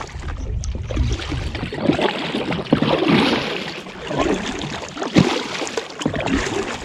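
Double-bladed kayak paddle dipping and pulling through calm lake water, with splashes and drips off the blades at each stroke.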